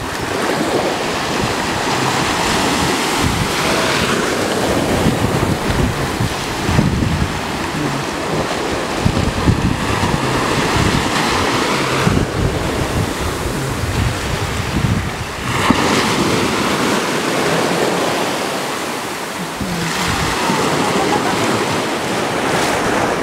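Small ocean waves breaking and washing through shallow surf, with wind buffeting the microphone; the wash swells and eases every few seconds.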